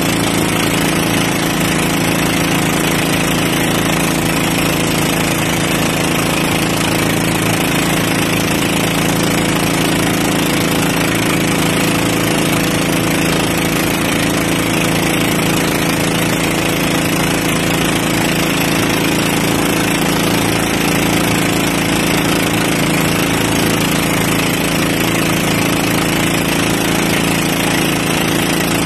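Outrigger boat's engine running steadily at cruising speed, with water rushing and splashing along the hull.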